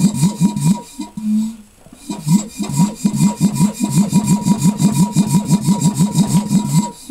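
Repaired VEB piston compressor running, its strokes pulsing at about five or six a second under a steady high whine. It stops about a second in and starts again about two seconds in, with a brief hum in between.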